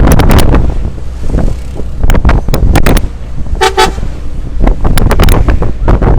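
Heavy wind buffeting the microphone on a moving bus roof, loud and crackling, with a vehicle horn giving two short toots a little past the middle.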